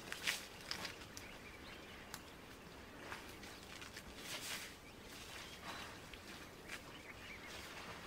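Faint outdoor ambience: elephants moving in a muddy waterhole give a few short, soft splashing and sloshing noises, with an occasional bird chirp.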